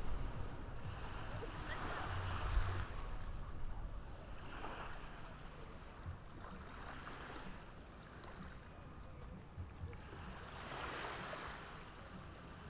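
Ocean surf washing on the shore, the hiss of each wave swelling and fading every few seconds over a steady low rumble.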